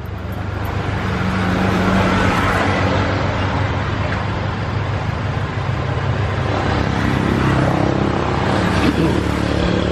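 Steady motor-vehicle engine and road-traffic noise with no sudden events.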